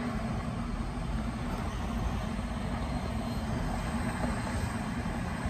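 Steady low rumble and hiss inside a car's cabin.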